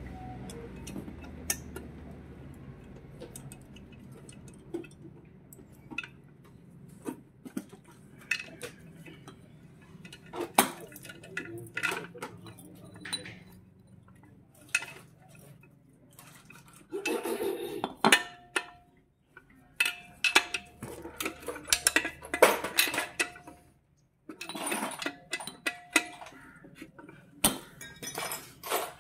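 Metal hand tools clinking, tapping and scraping against the bare aluminium crankcase of a Honda Dio 110 scooter engine during assembly. Scattered clicks at first, then busier knocking and clinking from a little past halfway, some strikes leaving a short ring.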